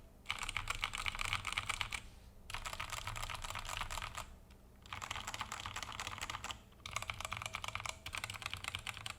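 Fast typing on a Redragon K630W mechanical keyboard with Outemu Brown tactile switches and PBT double-shot keycaps. The keystrokes come in quick runs of one to two seconds, broken by short pauses.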